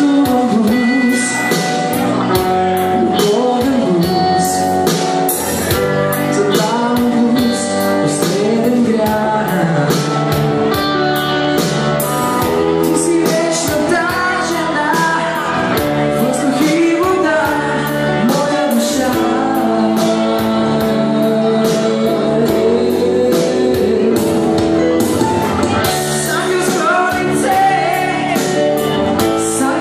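A live band playing a song, with a male singer singing into a microphone over it; drums and cymbals keep a steady beat.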